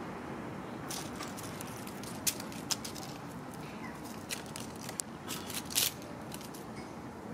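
Dry leaves and twigs crackling and clicking irregularly as a kitten paws and noses through leaf litter, starting about a second in, over a steady low background rush.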